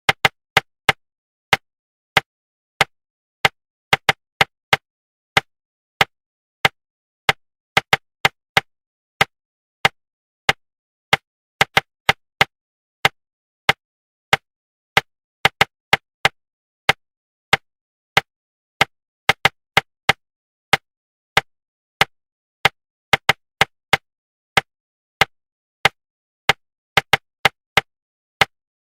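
Short, sharp knocks tapped out in an uneven rhythm, single taps mixed with quick pairs and clusters at about two to three a second, with silence between them: a rhythm-tapping pattern of the kind used to suppress inner articulation while speed reading.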